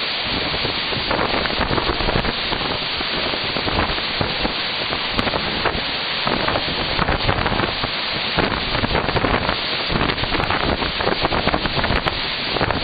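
Hurricane-force wind blowing in gusts with rain, buffeting the microphone: a loud, unbroken rush of noise that keeps swelling and easing.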